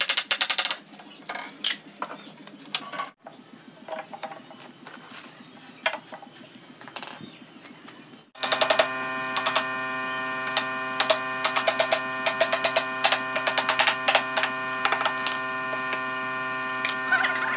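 Hammer tapping a chisel into hardwood with irregular sharp knocks, sparse at first and more frequent later. From about eight seconds in, a steady electric hum runs underneath.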